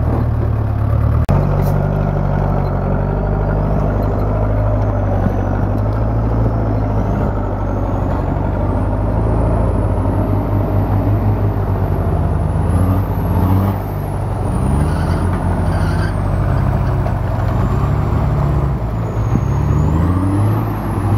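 Off-road vehicle's engine running steadily as it drives, a low drone under rumbling road noise, with a faint high whine drifting up and down in pitch.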